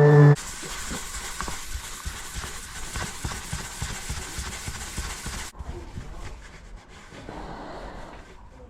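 Sanding down a hardened filler patch on a fibreglass surfboard: a steady rasping hiss with small irregular knocks that cuts off abruptly about five seconds in, followed by quieter rubbing.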